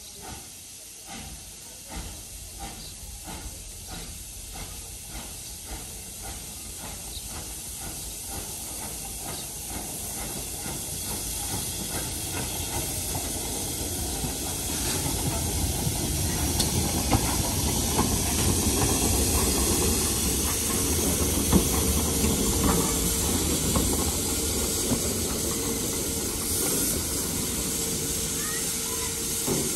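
Austerity 0-6-0 saddle tank steam locomotive hissing steam, with a regular beat of just under two strokes a second at first. The hiss grows steadily louder over the first twenty seconds, and a steady tone joins it in the second half.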